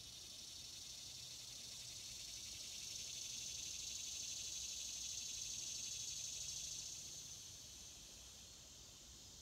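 Faint, steady, high-pitched insect chorus trilling, growing louder about three seconds in and easing back near the end.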